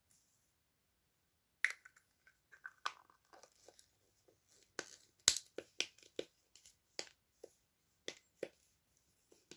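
Small plastic toy parts being handled and fitted together by hand: an irregular string of sharp clicks and snaps, the loudest about five seconds in.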